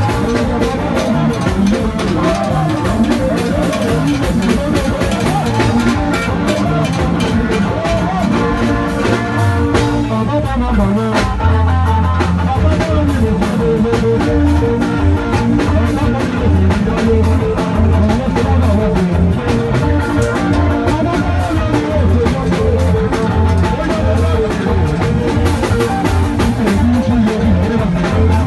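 Live band music: an electric guitar, drum kit and bass over a steady pulsing beat, with a man singing into a microphone.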